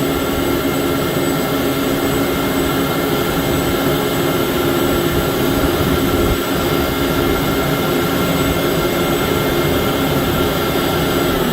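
Air compressor running steadily with a constant hum and a few held tones, unloaded after reaching maximum pressure while its internal pressure bleeds down before shutdown.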